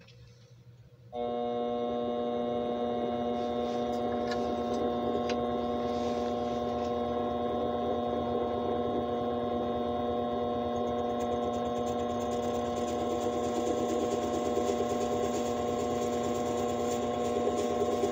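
Vevor mini metal lathe switched on about a second in. The motor and spindle start all at once and run at a constant speed with a steady whine of several tones.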